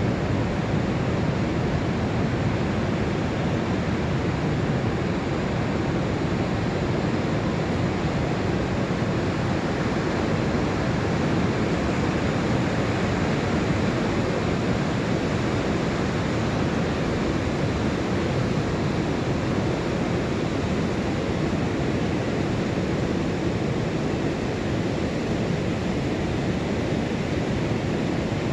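Pacific surf breaking offshore and washing up the sand on an incoming tide: a steady, even rush of water with no single wave standing out.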